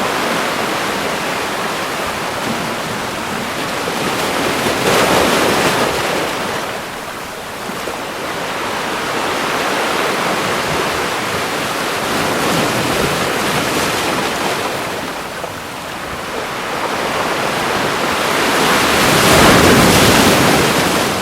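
Ocean waves washing on a shore in a continuous rush of surf, with two bigger waves swelling and breaking about five seconds in and near the end, the second the loudest.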